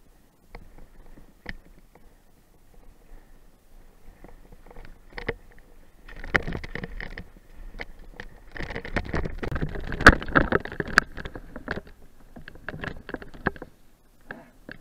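Mountain bike rolling down a rough dirt trail, heard from a helmet camera: tyres crunching over dry leaves and stones while the bike rattles and knocks over bumps. It starts faint, grows loud in two stretches from about six to eleven seconds in, then fades out.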